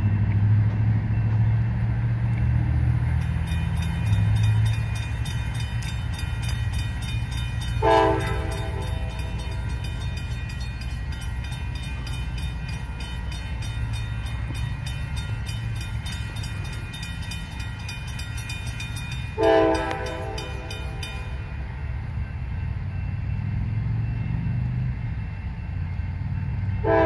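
Approaching GE AC4400CW diesel locomotive: a low engine rumble throughout, heavier at the start and again near the end, with three short horn blasts, about eight seconds in, near twenty seconds, and at the very end. A fast, even ringing, like a grade-crossing bell, runs through much of the middle.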